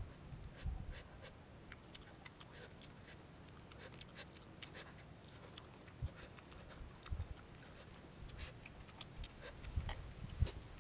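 Quiet eating sounds: grilled fish pulled apart by hand and chewed, with scattered small clicks and smacks and a few soft low thumps.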